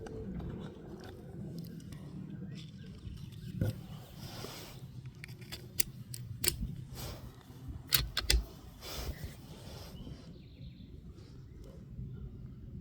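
A few sharp clicks and knocks from handling the .22 rifle, the loudest a quick pair about eight seconds in.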